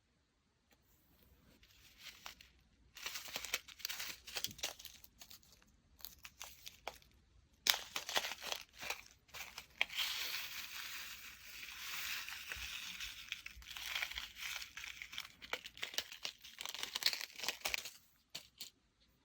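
Slime being squished and stretched by hand, making a dense crackly, sticky popping texture. It starts about two seconds in and stops shortly before the end.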